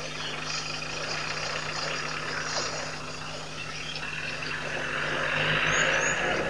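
Outdoor webcam microphone ambience: a steady electrical hum under a hiss that grows louder about two-thirds of the way in, with a few faint, short, high chirps near the end. Neither the lioness nor the hyenas can be heard calling.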